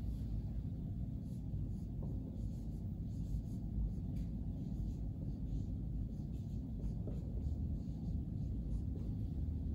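A steady low rumble fills the room. Over it are faint, short strokes of a dry-erase marker writing on a whiteboard.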